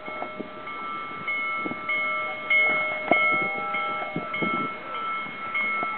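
Railroad warning bell ringing steadily, a little under two strokes a second, each stroke ringing on with several clear tones. A single held tone sounds for about a second midway through.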